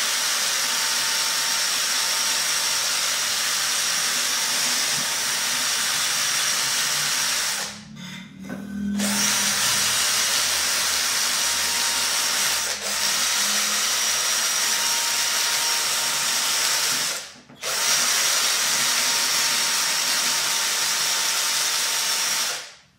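Cordless drill spinning a bristle-backed sanding flap wheel with 400-grit sandpaper strips against a rough wooden batten: a steady whir with a high whine and the hiss of the abrasive on the wood. It stops briefly about 8 s and 17 s in and cuts off near the end.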